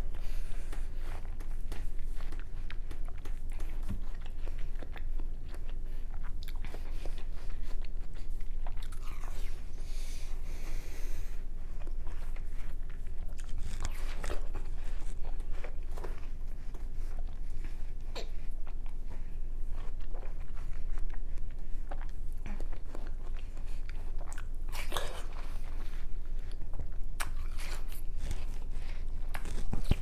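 A boy biting into and chewing chunks of raw watermelon, a steady string of short, irregular bite and chew sounds close to the microphone.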